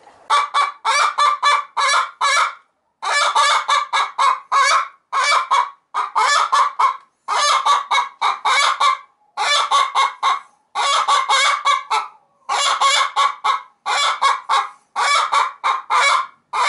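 A barred hen in a nest box cackling loudly, with series of short, harsh calls in bursts about every second and a half. This is the laying hen's egg song.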